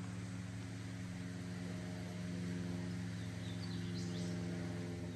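Steady rush of a small waterfall feeding a spring-fed pond, under a low steady hum, with a few faint bird chirps about three and a half to four seconds in.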